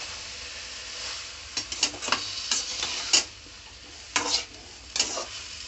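Slotted metal spoon stirring and scraping chunks of eggplant, tomato and onion around a metal kadai, over a frying sizzle from the hot oil. Several scraping strokes, the loudest about three seconds in.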